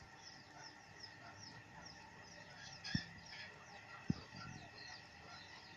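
Many small birds chirping at once, a busy overlap of short quick chirps, with two dull knocks about three and four seconds in.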